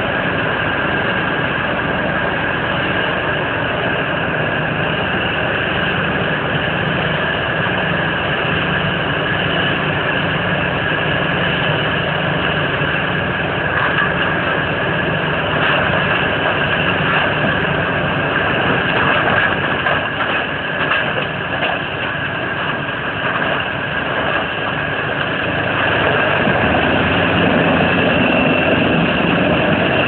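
Morbark 27 whole-tree chipper driven by a CAT 3412 V12 diesel, running at speed: a steady drone with a high whine on top. From about the middle there is irregular crackling and knocking as the loader feeds wood in and it is chipped, and the sound grows louder over the last few seconds.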